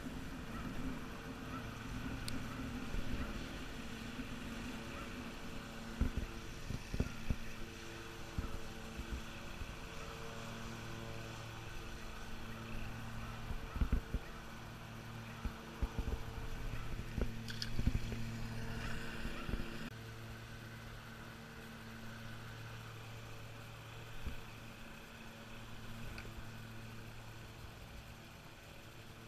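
A steady low motor hum that swells and eases every second or two, with scattered short knocks and thumps close to the microphone.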